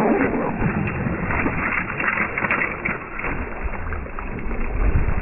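Hooked peacock bass thrashing and splashing at the water's surface beside the boat, heard as a dull, muffled rush of splashes.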